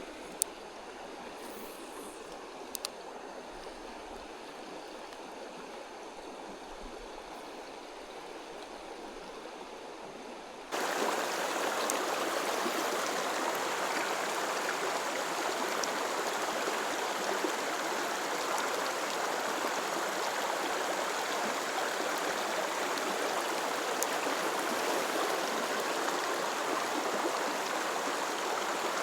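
Mountain creek water running steadily over rocks. It jumps abruptly louder about eleven seconds in and stays at that level, with a couple of faint clicks early on.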